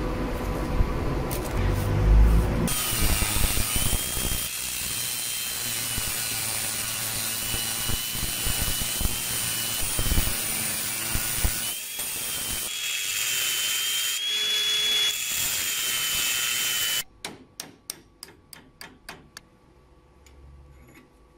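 Angle grinder with a thin cutting disc slicing a slot into a steel plate held in a vise: a steady grinding hiss with a wavering high whine, after a couple of seconds of rough knocking and scraping. The cutting stops suddenly near the end, followed by a quick run of light clicks.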